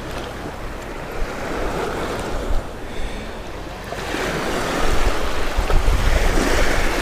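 Small surf waves washing up the beach, with wind buffeting the microphone in a low rumble; both grow louder about four seconds in.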